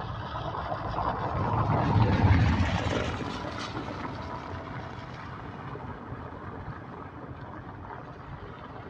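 A motor engine passing close by: its low rumble swells to a peak about two seconds in, then fades away.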